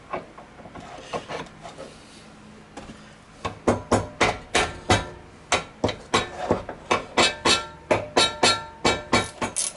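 Repeated sharp metal-on-metal strikes with a ringing tone, about three a second, starting a few seconds in after a quiet stretch: a hammer tapping on steel while working the flywheel loose on a small engine.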